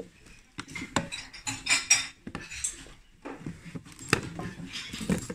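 Clinking and knocking of crockery, glass and metal tins shifting against each other while a hand rummages in a cardboard box and lifts and opens a small wooden box, with a cluster of clinks about a second in and more knocks near the end.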